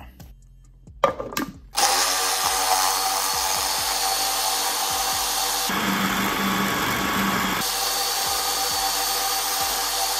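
A few knocks about a second in, then a food processor's motor starts and runs steadily, its blade churning a thick frozen mix of strawberries and ice into an ice-cream-like texture.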